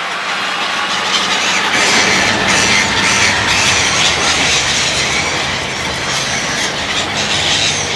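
Freight train running past at speed, its wheels clattering over the rail joints in a continuous loud rumble with repeated clacks.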